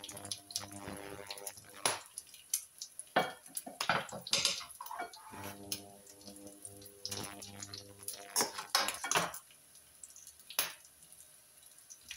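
Kitchen utensils, a wooden spatula and then a knife, clicking and scraping on buns and a plate during burger assembly, in a run of sharp knocks. A low steady hum comes and goes underneath.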